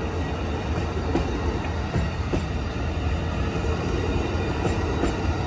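Amtrak Coast Starlight's double-deck Superliner passenger cars rolling past close by: a steady rumble of steel wheels on rail, with a few sharp clicks as wheels pass over the track.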